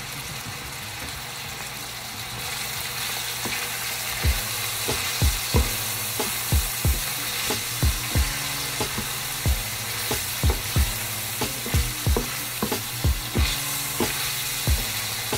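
Diced vegetables with curry powder sizzling in a metal frying pan while a wooden spatula stirs them, knocking and scraping against the pan about twice a second from about four seconds in. The sizzle gets a little louder a couple of seconds in.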